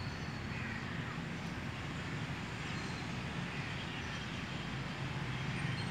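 Steady low outdoor background rumble, with a few faint high calls now and then.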